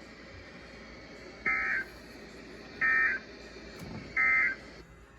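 Emergency Alert System end-of-message signal: three short, identical buzzy digital data bursts about 1.4 seconds apart, heard through the radio receiver over steady static hiss. This marks the close of the broadcast special marine warning.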